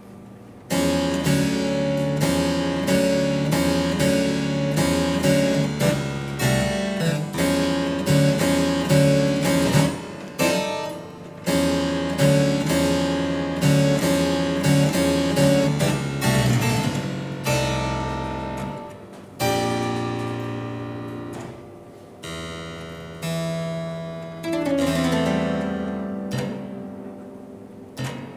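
Two-manual harpsichord played solo. After a brief pause come rapid, repeated plucked notes and chords for about sixteen seconds. Then slower, sparser chords ring on and die away near the end.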